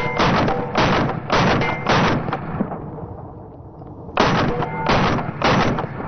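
Gunfire: a quick string of shots about two a second, each with a ringing tail, then a pause of nearly two seconds and three more shots.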